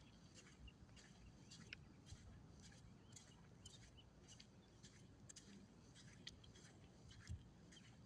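Near silence: faint outdoor background with scattered faint ticks.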